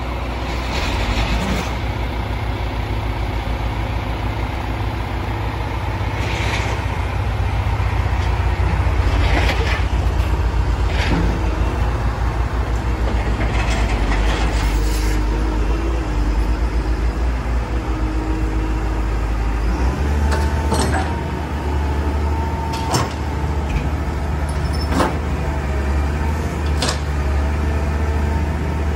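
Caterpillar M318D wheeled excavator's diesel engine running steadily. Short hisses come and go over it, and the low engine note changes about two-thirds of the way through.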